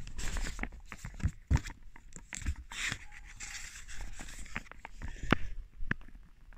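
Handling noise from a phone moved about against cloth: fabric rustling and scraping over the microphone, with scattered knocks and taps, the loudest a little past five seconds in.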